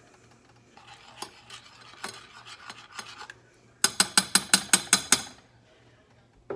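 A metal utensil stirring and scraping softly in a saucepan of gravy. Near the middle it is rapped quickly against the metal pan's rim, about ten sharp taps in a second and a half.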